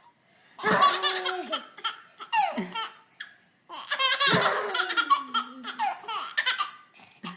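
A baby belly-laughing in two long bouts of repeated bursts of laughter, with a short pause between them.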